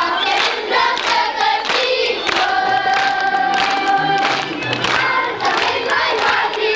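A group of voices singing a folk song together over instrumental music with a steady beat.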